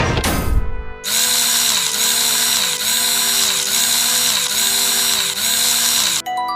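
Power drill whirring, revved up and let run down about six times in a row, each pull rising in pitch, holding and falling. A second of loud rumbling comes before it, and a tinkly chime melody starts near the end.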